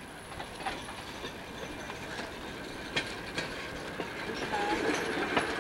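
A railroad section car (track motorcar) being pushed by hand along the rails: scattered metal clanks and knocks from its steel wheels and frame on the track, over a steady background hum.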